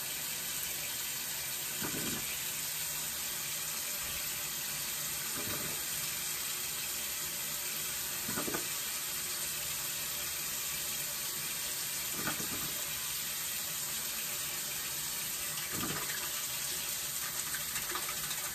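Bathroom sink tap running steadily, with a few faint short sounds every three to four seconds.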